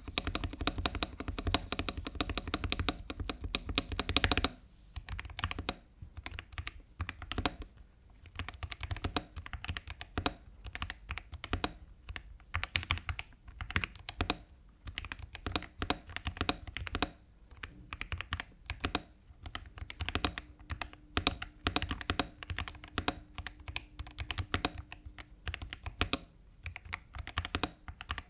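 Typing on a mechanical keyboard fitted with Akko Starfish linear switches. A dense, fast run of keystrokes comes first, then bursts of typing broken by short pauses.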